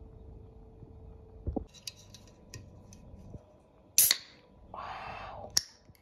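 Clicks and taps of objects being handled on a table, with a loud sharp click about four seconds in and a short rustling hiss soon after.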